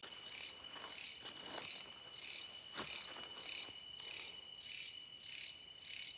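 Night insects calling: a rhythmic, pulsing high-pitched chorus, about three pulses every two seconds, over a steady high whine, with a few faint rustles.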